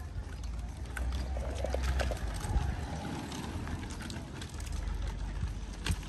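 Footsteps walking along a pavement, irregular clicks about twice a second, over a steady low rumble.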